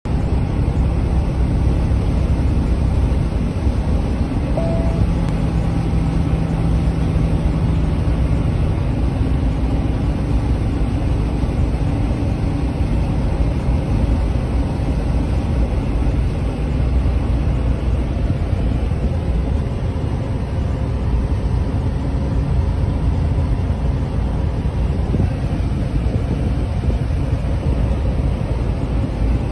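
Steady low rumble of road and engine noise heard from inside the cabin of a moving vehicle, with a faint steady engine hum underneath.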